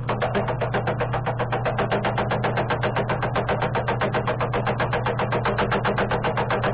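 Milling machine taking a skim cut across a 4140 steel block: the cutter strikes the metal in a rapid, even chatter, about nine hits a second, over the steady hum of the mill's motor.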